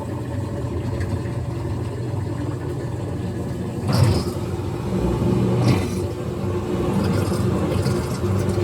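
Washing machine running with its oranges load, a steady motor hum and rumble, with a louder thud about four seconds in and another a couple of seconds later.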